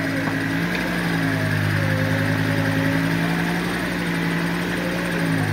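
Off-road competition buggy's engine running steadily in a muddy pit, with a fainter whine that slowly wavers up and down in pitch above it.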